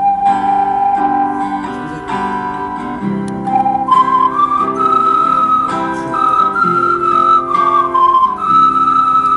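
Ocarina playing a slow, smooth melody over a plucked acoustic guitar accompaniment. A long low note gives way about four seconds in to a higher phrase of sustained notes.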